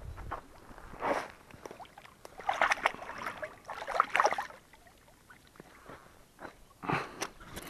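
Splashing in shallow, muddy water as a hooked carp thrashes at the bank, in several separate bursts over a few seconds.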